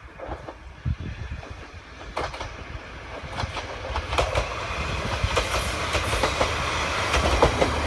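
Isumi Railway diesel railcar passing over a level crossing: wheels clacking over the rail joints above a low rumble, growing steadily louder as it comes near.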